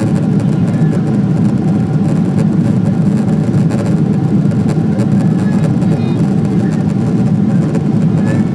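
Steady cabin noise inside a Boeing 777-200 climbing out after takeoff: the engines at climb power and the rush of air over the fuselage, a deep, even drone.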